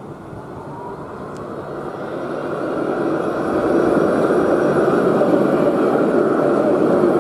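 Alstom Citadis 302 tram approaching and passing close by, its running noise growing louder over the first four seconds and then holding steady as the cars go past, with a faint rising whine about a second in.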